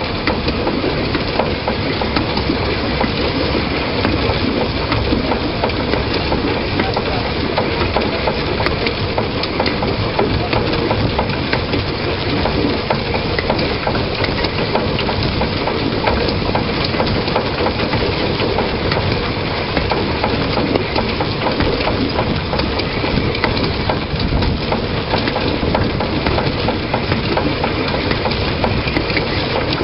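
Narrow-gauge train running along the line, heard from a camera mounted on the locomotive: a steady, loud rattle and rumble of wheels on rail with a dense crackle throughout.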